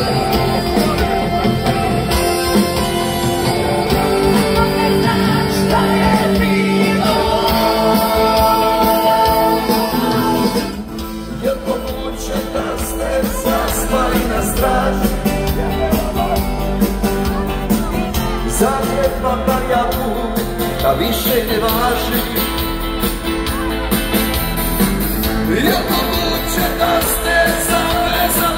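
Live rock band with singing, heard from within the crowd. The music dips in level briefly about ten seconds in, then carries on with singing over guitar and drums.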